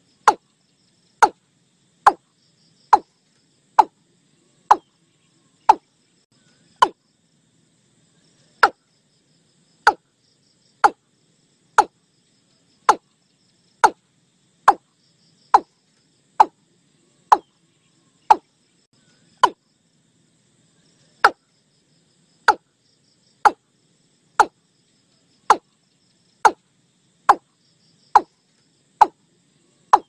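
Watercock calls: a long series of short, sharp, knocking 'tok' notes, about one a second, with a brief break about seven seconds in and another just before twenty seconds. Crickets trill faintly behind.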